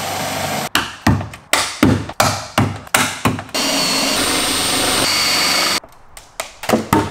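Cordless drill cutting out spot welds in a car's steel roof rail, run in a series of short bursts and then in one steady pass of about two seconds with a thin high whine of the bit in the metal.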